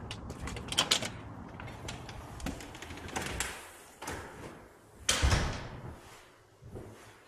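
Glass storm door's handle latch clicking open and the door swinging, then a door shutting with a thud about five seconds in.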